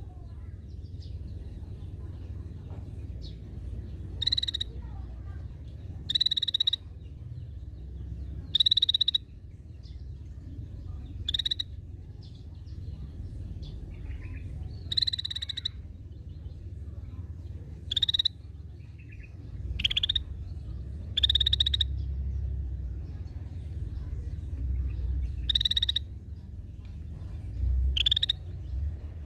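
Cucak bersisik (scaly-breasted bulbul) giving short, high calls, about ten of them, one every two to three seconds, over a steady low hum.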